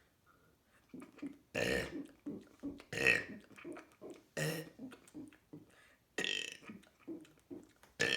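A person burping over and over: four loud burps about a second and a half apart, with quieter sounds in between.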